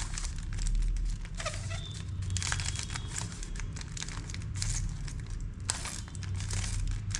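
Plastic 3x3 Rubik's cube being turned by hand through a sequence of face moves: a run of irregular clicks and scrapes, over a steady low hum.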